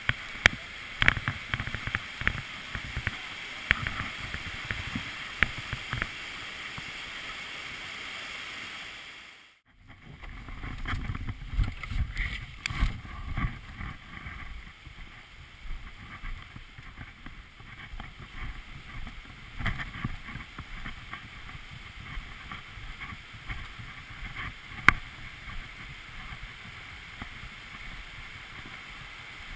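Steady rush of a whitewater mountain creek, with scattered knocks and clicks. After a short break about ten seconds in, the rushing goes on under frequent low thumps and wind buffeting on the microphone.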